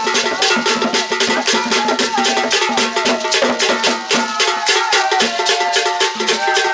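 Ghanaian hand drums played in a fast, steady, dense rhythm of many strokes a second, with held and gliding tones sounding above the drumming.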